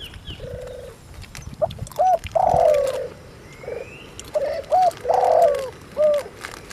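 Doves cooing over and over, short hooked coos alternating with longer drawn-out ones, with a few sharp clicks mixed in.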